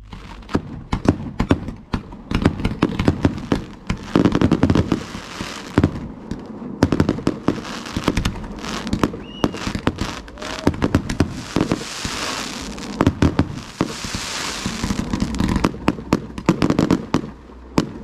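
Fireworks going off in quick succession: a dense run of sharp bangs from shells bursting, several a second, with hissing and crackling between them.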